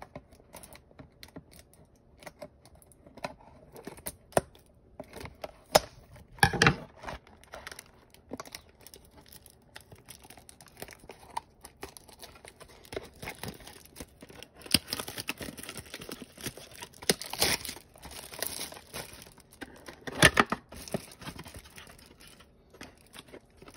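Plastic shrink wrap being torn and crinkled off a cardboard trading-card box: irregular crackling and rustling, busier in the second half, with two louder sharp rips, one about a quarter of the way in and one near the end.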